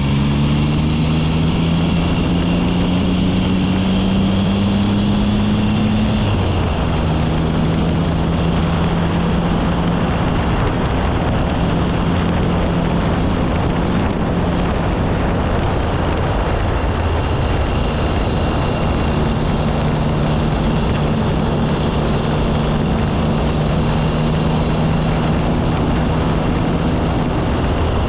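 BSA Rocket 3 740 cc three-cylinder engine under way on the road. The revs rise for about the first six seconds, drop sharply with an upshift, and then the engine pulls steadily at a near-constant speed for the rest, over a rush of wind.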